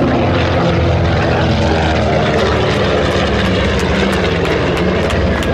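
B-25 Mitchell bomber's twin Wright R-2600 Cyclone 14-cylinder radial engines and propellers passing close overhead: a loud, steady, many-toned drone.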